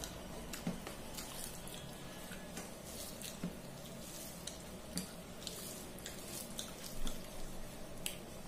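Rice and fish curry being mixed by hand on a steel plate: soft wet mixing with scattered small clicks of fingers and rice against the metal, the loudest about seven seconds in.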